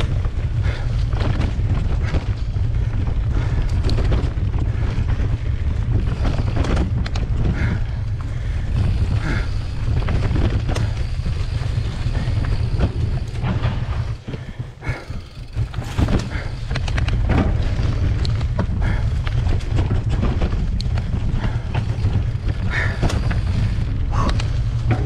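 Wind buffeting the camera microphone while a Giant Trance 3 mountain bike rides a dirt singletrack, with many short clicks and rattles from tyres and bike over the leaf-covered ground. The wind rumble drops away briefly about halfway through, then returns.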